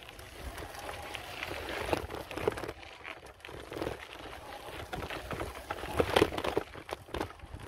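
Bicycle rolling over gravel and rough dirt, its tyres crunching and the bike rattling, with irregular knocks and clicks throughout.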